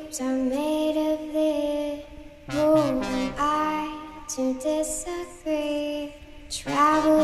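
Background music with a sung melody.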